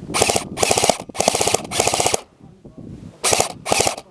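Airsoft rifle firing six short full-auto bursts of rapid shots, each about half a second long: four back to back, then two more after a pause of about a second.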